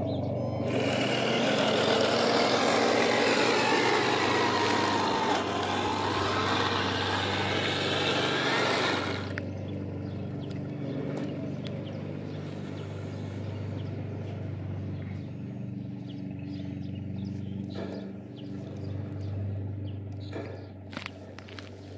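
1/16 scale RC Stuart light tank running: a steady low motor and gearbox hum under the loud clatter of its tracks and drive on gritty tarmac, with a wavering whine. The clatter is loud for the first nine seconds, then drops suddenly and the rest is quieter running with a few small clicks.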